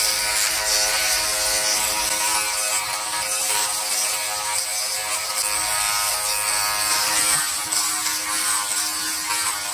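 Philips BodyGroom 7000 electric body groomer running with a steady buzz as it shaves armpit hair.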